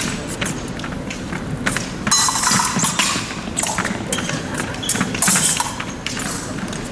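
Épée bout in progress: fencers' feet stamping and sliding on the piste, and the blades clicking against each other in quick knocks.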